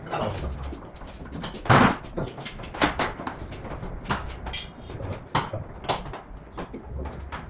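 Irregular knocks, clicks and clatter of hand tools and parts as the underside of a car on a lift is taken apart, with the loudest knock a little under two seconds in.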